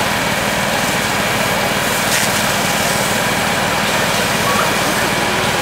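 A small engine running steadily, the fire pump feeding the charged hoses, with a constant hiss over it.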